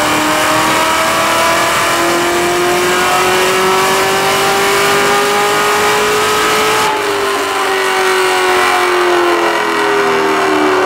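Cadillac CTS-V's supercharged 6.2 L LSA V8, fitted with aftermarket headers, running at full throttle on a chassis dyno: its pitch climbs steadily through a dyno pull for about seven seconds. Then the throttle closes and the engine winds down with falling pitch.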